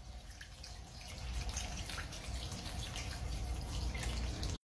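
Water trickling and splashing across a wet tiled floor into an open floor trap, with small drips and splashes over a low rumble.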